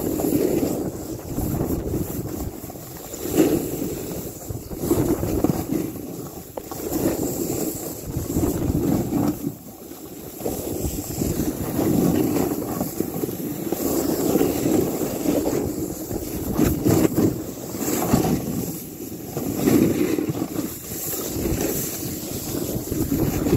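A snowboard sliding and scraping over snow during a descent, with wind buffeting the microphone. The rush swells and eases every second or two.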